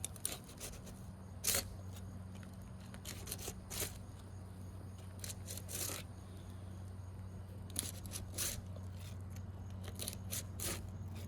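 Thin-edge putty knife worked under an asphalt shingle tab to break its sealant strip, in short irregular scrapes and clicks. The tar strips there are nearly gone.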